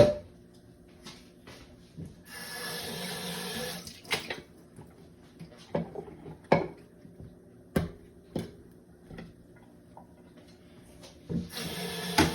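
Kitchen tap running into a sink for a second or two, then about six separate knocks and clacks as vegetables and containers are handled, and the tap running again near the end. This is the seasoning vegetables (peppers, onions, tomato) being washed.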